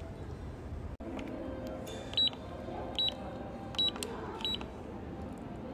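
PAX D230 card payment terminal keypad beeping as a PIN is typed in: four short, high beeps about three-quarters of a second apart, starting about two seconds in, over quiet background music.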